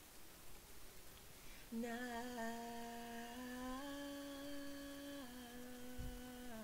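A woman's unaccompanied voice holds one long, low harmony note, a background vocal part being laid down. It starts about two seconds in and steps slightly up and back down in pitch a couple of times.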